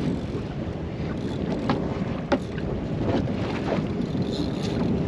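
Wind buffeting the microphone over sea water washing against a boat hull, with a couple of sharp clicks about two seconds in.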